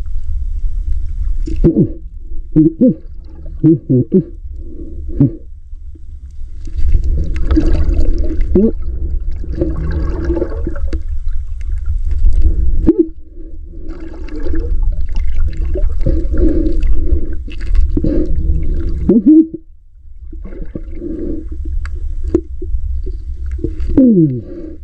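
Muffled sloshing and gurgling of water close to the microphone, over an uneven low rumble that comes and goes.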